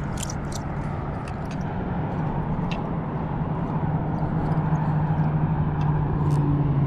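A steady low engine hum that grows louder in the second half, with faint scattered clicks from a spinning reel being cranked as a hooked catfish is reeled in.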